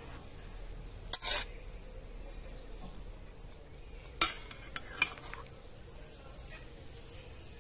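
Metal cutlery clinking and scraping against a metal serving tray and plates: a click and a short scrape about a second in, then two sharp clinks around four and five seconds in.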